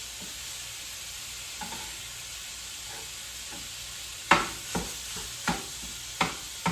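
Food sizzling in a frying pan with a steady hiss. About four seconds in comes a run of five sharp knocks, roughly one every half to three-quarters of a second.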